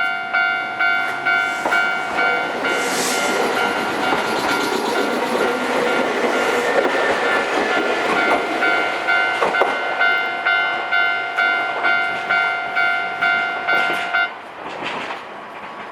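Japanese railway level-crossing warning bell dinging in an even electronic rhythm, about two strokes a second, while a Nankai Kada Line train passes over the crossing, its running noise swelling in the middle and half-masking the bell. The bell cuts off about fourteen seconds in, the sign that the train has cleared the crossing.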